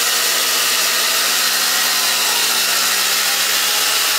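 Homemade bandsaw sawmill running on its small gasoline engine, with the band blade sawing through a red oak cant. The engine holds a steady high speed, its pitch sagging slightly a little past halfway and then recovering.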